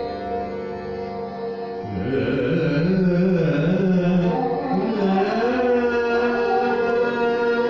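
Hindustani classical vocal: a male singer moving through a slow phrase in long glides over a steady tanpura drone, the voice coming in strongly about two seconds in.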